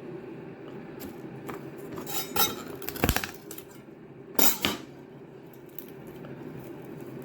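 Kitchen knife knocking and clattering against a chopping board as garlic cloves are crushed under the blade: a run of sharp knocks about two seconds in, the loudest about three seconds in, and another short clatter about four and a half seconds in.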